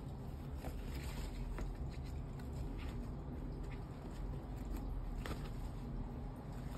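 Fabric pouch flaps of a camouflage magazine bandoleer being handled: soft rustling with a few faint taps, over a steady low hum.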